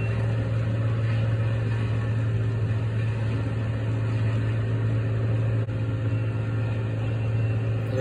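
A vehicle engine idling steadily, with a strong low hum.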